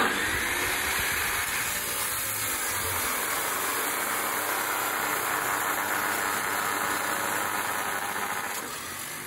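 Electric abrasive chop saw cutting through a steel bar: the motor starts at once and the disc grinds steadily through the metal. It winds down near the end.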